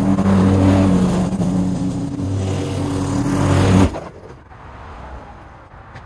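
Petrol lawn mower engine running steadily, then stopping abruptly a little under four seconds in.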